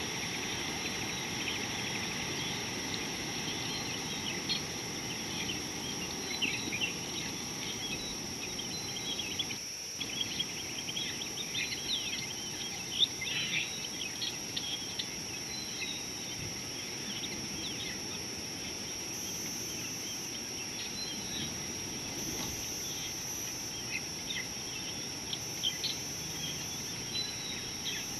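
Bush ambience: a steady, high-pitched insect drone, with many short bird chirps scattered over it, busiest in the middle.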